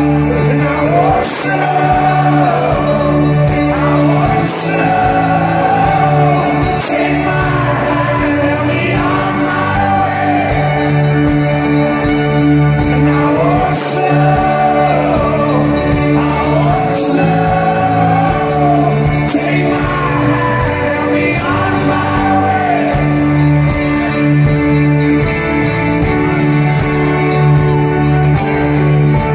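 Music: a slow song with a lead melody gliding and bending over steady held chords.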